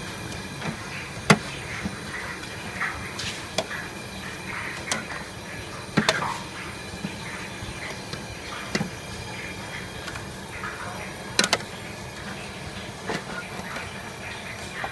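Stainless steel plates clinking and knocking against each other and the metal pot as whole fish are handled on them: about seven sharp clinks at irregular intervals, the loudest about a second in, about six seconds in and a quick double clink late on, over a steady background hiss.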